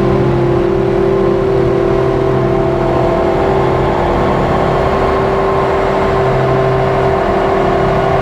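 Layered synthesizer drone from a Make Noise Strega and a Meng Qi Wingie, built up with a looper: several held tones over a steady mid-range note, with low tones fading out about three seconds in and coming back for a while near six seconds.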